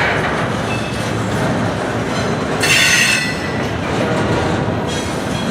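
Freight train cars rolling past close by: a steady rumble and clatter of steel wheels on rail, with a brief stretch of thin, high wheel squeal about halfway through.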